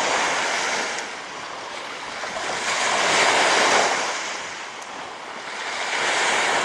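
Small waves breaking and washing onto a shallow shore, swelling and fading about every three seconds, with wind buffeting the microphone.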